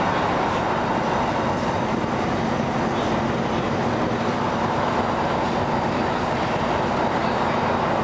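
Interior noise of a LiAZ-6213.22 articulated diesel city bus under way: the engine's steady hum with road and tyre noise, unchanging throughout.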